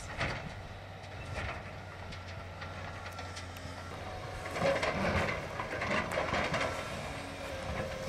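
Distant crane running steadily as it picks up and loads demolition debris from a wooden dry kiln, with a louder stretch of clanking and scraping from about halfway through.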